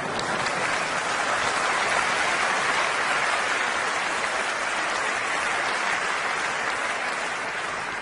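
Live theatre audience applauding, a dense steady clapping that eases off slightly near the end.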